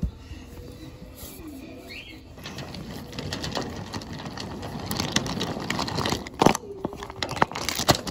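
Wooden toy subway cars pushed by hand along wooden track: the wheels rumble over the track, with sharp clacks at the track joints and where the cars knock together, busier in the second half and loudest about two-thirds through.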